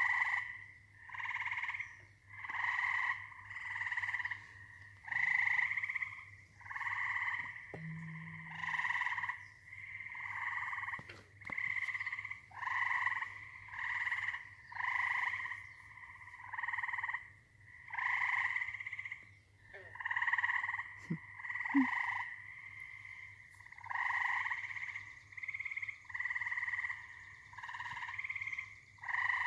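A chorus of frogs calling from a pond: short calls, each under a second, repeating about once a second and overlapping one another.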